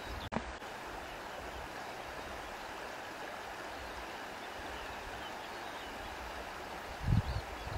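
Steady rushing of flowing river water. There is a brief click and dropout just after the start, and a low wind gust on the microphone near the end.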